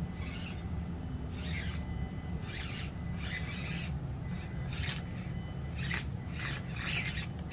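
Small electric motor and gearbox of an SCX24 micro RC crawler whirring in short raspy bursts, about one every half second to second, as the throttle is blipped to work the truck over the course.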